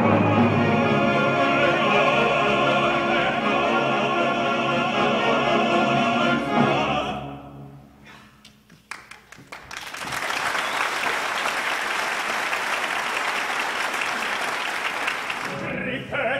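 Operatic singing with full orchestra, ending with a loud stroke about six and a half seconds in and fading out. After a short lull, an audience applauds steadily for about six seconds.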